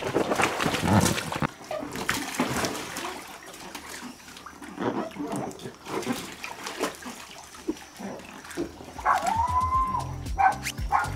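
Water splashing and lapping in a swimming pool as a swimmer moves through it with an inflatable float. Near the end a short rising-then-falling tone sounds, and a low beat comes in.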